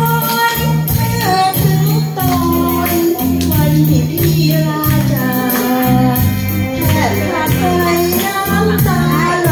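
A woman singing into a microphone over a backing track, amplified through a loudspeaker, with a steady bass line under the melody.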